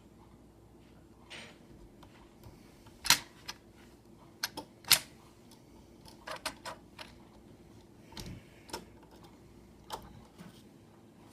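Irregular clicks and light taps from a screwdriver, screw and laptop screen parts being handled, with two sharp louder clicks about three and five seconds in.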